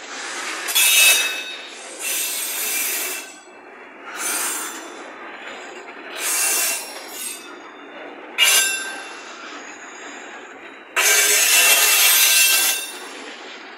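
Freight wagons rolling past with their steel wheels squealing against the rails in repeated screeching bursts every couple of seconds. The longest and loudest squeal comes near the end. A lower rolling noise continues between the squeals.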